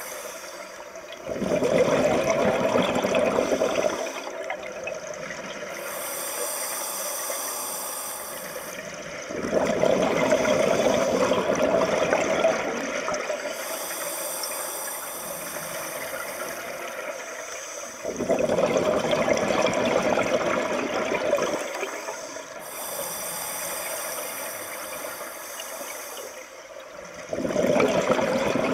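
Exhaled air from a diver's surface-supplied helmet bubbling out underwater, four times about nine seconds apart, each bubbling lasting three to four seconds, with a quieter hiss between breaths.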